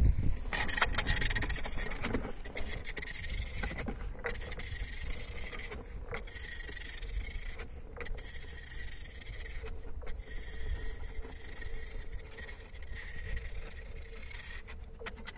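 An ice rower's runners scraping and hissing over clear, thin lake ice, with a sharp click every couple of seconds, gradually getting fainter.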